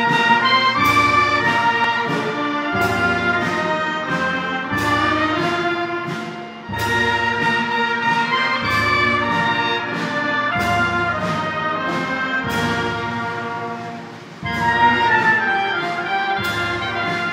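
Wind band of clarinets, brass and drums playing a slow processional hymn, with strong drum beats about every two seconds under the melody. The sound echoes in a large church.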